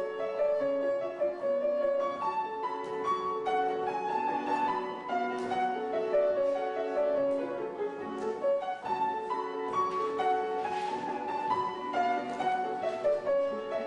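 Piano playing a classical melody, the accompaniment to a ballet class exercise.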